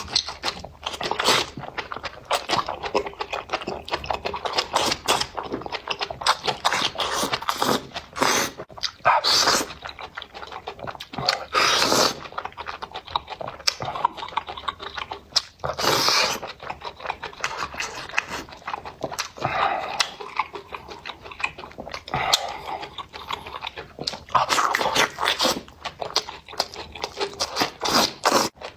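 Close-miked eating sounds from a person eating spicy food: wet chewing and mouth clicks throughout, with a few longer, louder noisy sounds along the way.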